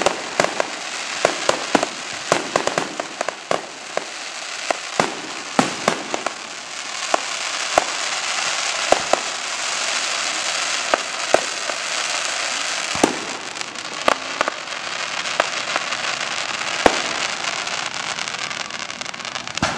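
Aerial fireworks shells going off: a rapid run of sharp bangs for the first six seconds or so, then a steady crackling hiss with scattered single bangs.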